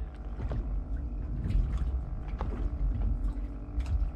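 Small fishing boat at sea: a steady low engine hum with wind rumbling on the microphone, and a few light knocks scattered through.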